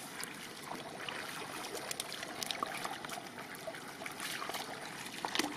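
Shallow muddy water splashing and trickling as hands grope in it and lift a fish out, with many small quick splashes and drips.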